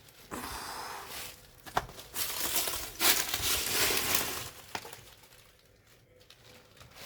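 Rustling and crunching as someone moves through dry leaf litter and debris, in two spells of about one and two seconds with a couple of sharp snaps, then quieter near the end.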